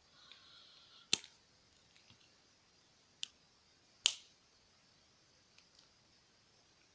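Sharp clicks of small tools on the parts of a wristwatch movement being taken apart: three separate clicks, the loudest about four seconds in, with faint scraping in the first second.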